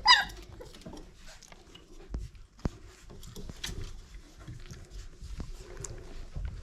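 A five-week-old pit bull puppy gives one sharp, high yelp at the very start, the loudest sound here. After it come scattered light clicks and scuffles of the puppies moving about.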